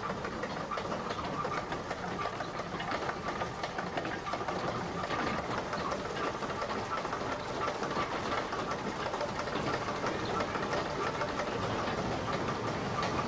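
Watermill machinery running: a steady, dense clatter from the wooden gearing, the millstones and the hopper's shoe at work.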